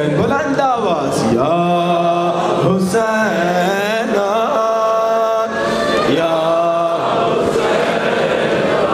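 A man chanting a Shia mourning lament (masaib) in long sung phrases that slide up and down in pitch.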